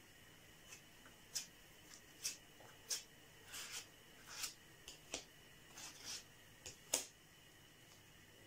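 Faint short scrapes and rustles of fingers rubbing acrylic putty through a paper-napkin stencil onto cardboard, about a dozen irregular strokes, stopping about seven seconds in.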